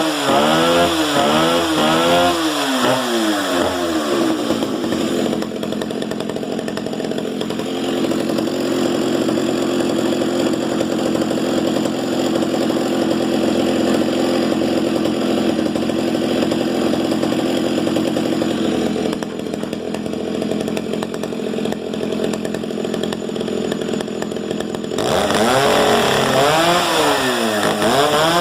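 Stihl 08S two-stroke chainsaw engine revving up and down several times, then idling steadily for about twenty seconds, then revving up and down again near the end.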